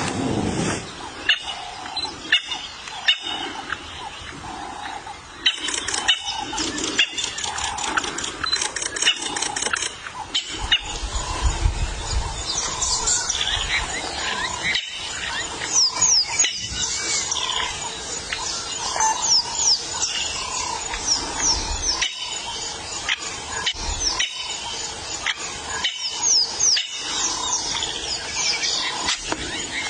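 Wild animal sounds with many short, high, falling chirps, broken by abrupt cuts every few seconds, and a low rumble around the middle.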